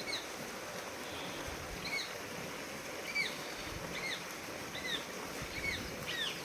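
Baby parrot giving short, high chirps, one roughly every second, each a quick rise and fall in pitch.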